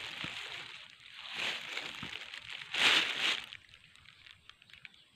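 Rustling in the vegetation, swelling in a few bursts with the loudest about three seconds in, then quieter.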